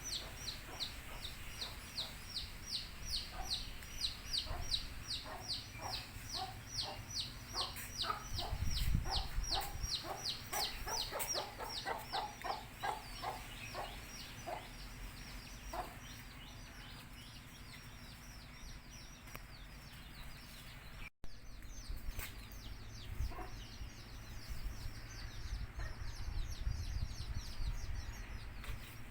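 Baby chicks peeping in a steady stream of quick, high, falling-pitch peeps, about three a second, with a country hen's low clucks mixed in, thickest around a third of the way through. The peeping grows fainter after about the halfway point, with a brief dropout about two-thirds of the way in.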